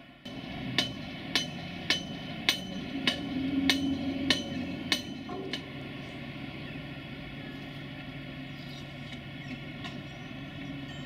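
A run of about nine sharp hammer blows, roughly one every 0.6 seconds, that stops about halfway through, over a steady low hum of site machinery.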